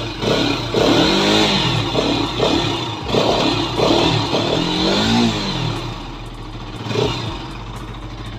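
Bajaj Pulsar NS200 single-cylinder engine revved in several throttle blips, its pitch rising and falling and dropping back toward idle between them. It is running with its old stock air filter, which the owner suspects is behind the loss of pickup and mileage.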